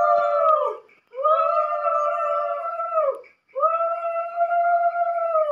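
Conch shell (shankha) blown in long, steady blasts. The first is already sounding at the start and ends about a second in, then two more follow. Each one sags in pitch as it ends.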